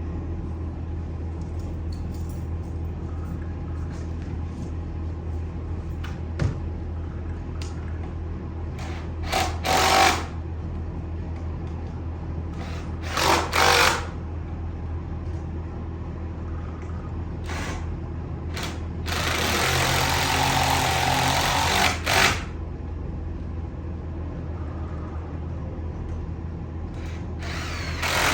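Makita CXT cordless drill driving furniture bolts in short bursts: about a second at a time, three times, plus one run of about three seconds. A steady low hum sits underneath throughout.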